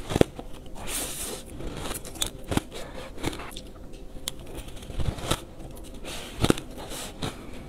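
Close-miked bites of shaved ice taken off a metal spoon: a string of sharp, irregular crunches, the loudest just after the start and about six and a half seconds in.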